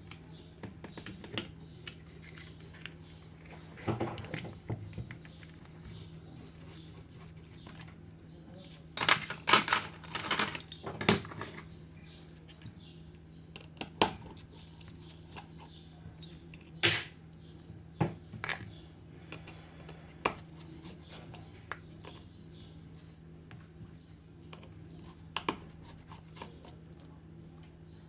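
Scattered small clicks and taps of hand tools and parts being handled during an iPhone 7 screen repair, with a denser cluster of sharper clicks about nine to eleven seconds in, over a steady low hum.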